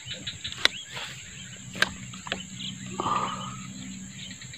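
Steady high-pitched insect drone, with two sharp clicks about a second apart and a brief rustling splash about three seconds in.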